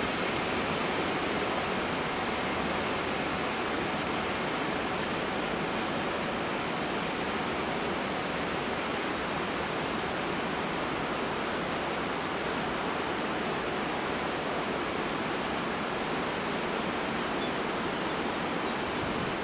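Fast mountain river rushing steadily over a rocky bed, a continuous even roar of water.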